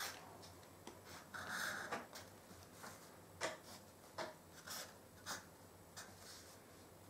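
Felt-tip marker drawing lines on paper along a ruler: faint, short scratchy strokes several times, one longer stroke about one and a half seconds in.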